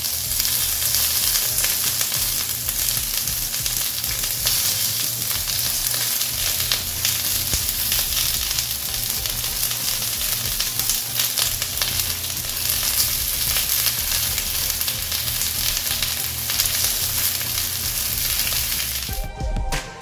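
Chicken tikka pieces sizzling and crackling in hot oil on a preheated cast-iron sizzler plate with onion rings: a steady hiss with many small crackles. Music cuts in near the end.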